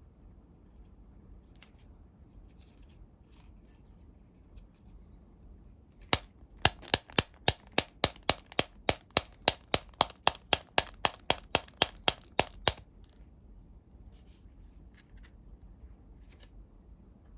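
Folded coloured-paper noise-making toy snapped over and over: about twenty sharp paper clicks, roughly three a second, starting about six seconds in and stopping some seven seconds later. Faint paper handling before and after.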